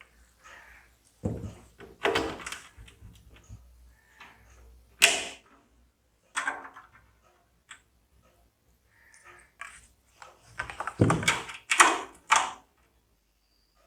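Irregular handling knocks and clunks of hard objects being set down and fitted together, about eight or nine separate thunks, the loudest about five seconds in and near the end.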